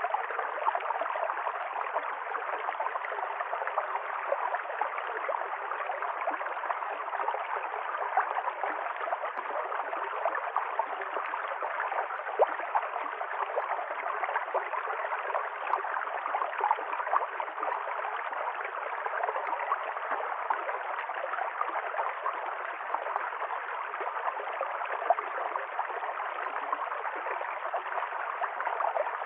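A river stream flowing: a steady rush of water flecked with many small splashes, unbroken throughout.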